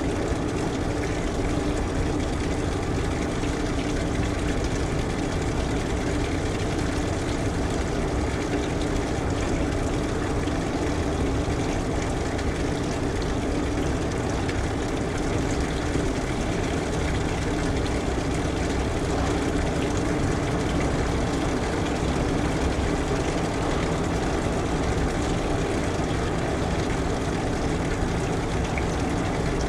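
Steady drone of distant ship engines heard across open water, with a constant low hum and no distinct events.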